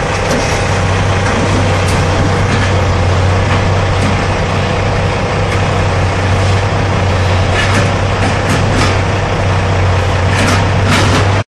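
Heavy diesel engines of a Caterpillar 315C excavator and a dump truck running steadily with a deep drone, while the excavator's grapple drops demolition debris into the steel dump trailer with scattered knocks and clatters. The sound cuts off suddenly near the end.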